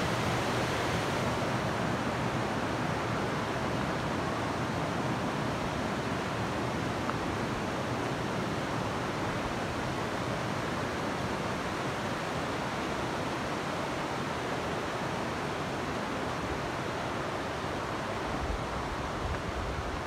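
Stream water rushing steadily over rocks and a small cascade, easing slightly in level toward the end.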